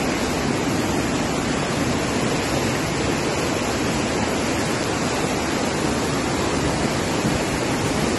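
Muddy floodwater rushing in a fast torrent down a street channel: a steady, loud rush of water with no let-up.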